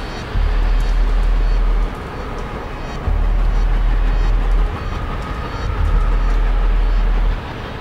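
Film-score music: deep, sustained bass notes held for a second or two at a time with short breaks between them, over a dark, dense wash of sound.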